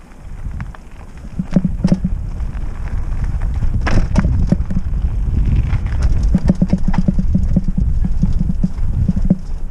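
Trek Roscoe 6 hardtail mountain bike running over rough trail: a steady rumble of tyres on dirt, rocks and roots with rapid rattles and knocks from the bike, swelling over the first second or two as speed builds.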